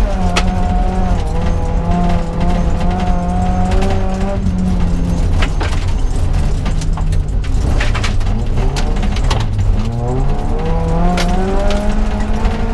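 Onboard sound of a BMW 318is rally car's 1.8-litre four-cylinder engine pulling hard at high revs on a gravel stage. The revs drop and sag for a few seconds around the middle, then climb again near the end, with sharp clicks of gravel striking the car's underside.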